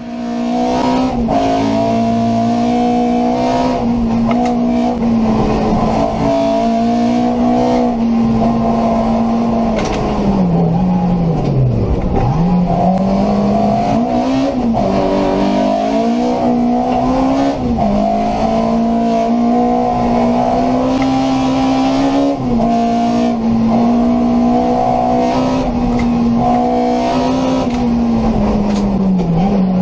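Race-tuned VW Polo's 1.3-litre four-cylinder engine heard from inside the cabin, held at high revs through a slalom run, with brief dips in pitch, the deepest about twelve seconds in.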